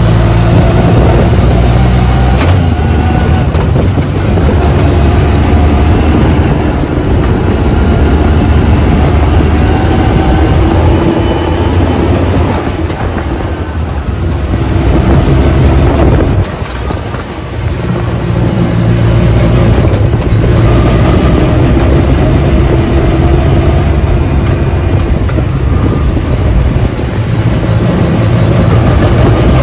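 Side-by-side off-road vehicle's engine running under load, heard from inside its open roll-cage cab with rumble and rush from the dirt trail. The engine eases off twice around the middle, then picks up again.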